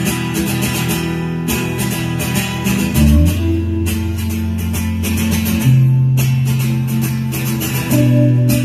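Live rock band playing: strummed acoustic guitar over electric guitar, bass guitar and drums, with the bass moving to a new note about every two to three seconds.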